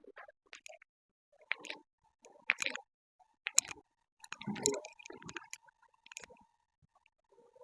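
Handling sounds of a chiropractic manipulation: scattered sharp clicks and snaps with soft rubbing of hands and body on the treatment table, and a couple of louder bursts near the middle. A faint steady tone comes in partway through.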